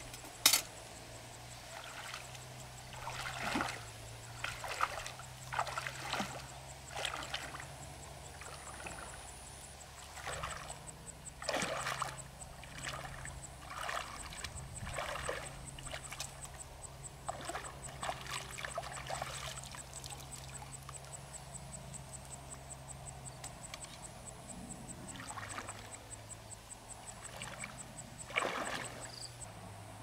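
Legs wading through shallow water: irregular sloshing and splashing as the feet and hands move about, with one sharp click about half a second in.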